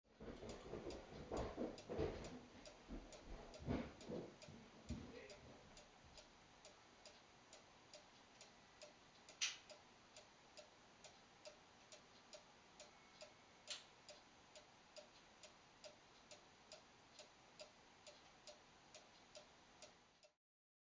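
Faint, even ticking of a clock, about two ticks a second, with a couple of sharper clicks partway through. A few louder knocks and rustles come in the first five seconds, and the sound cuts off suddenly near the end.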